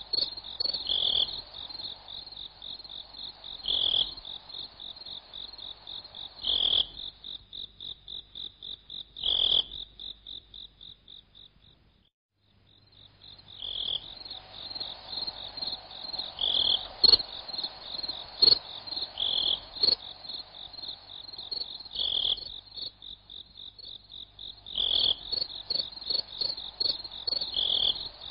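Crickets chirping in a steady, high pulsing trill, with a louder call about every three seconds. The chorus fades out about halfway through and returns a moment later.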